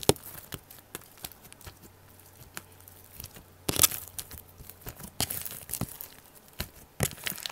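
Slime being worked by hand to trap a big air bubble: sticky crackling and irregular sharp clicks and pops of air, with louder squelching bursts about 4 and 5 seconds in.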